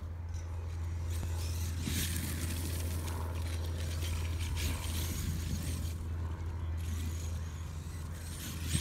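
Losi LST XXL2-E 1/8-scale electric monster truck running on a 6S LiPo, driving across wood chips some way off. Several short bursts of hiss come over a steady low rumble.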